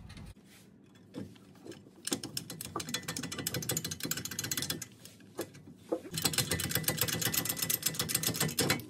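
A socket ratchet clicking rapidly as it is worked, in two long runs starting about two seconds in and again about six seconds in, with a few light knocks between.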